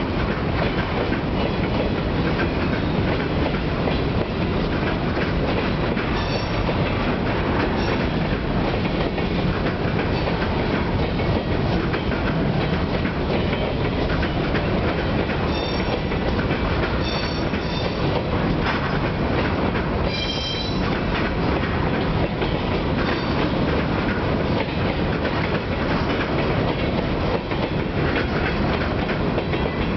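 Empty freight cars rolling past on jointed track: a steady rumble and clatter of wheels, with short high-pitched wheel squeals a few times, the clearest about two-thirds of the way through.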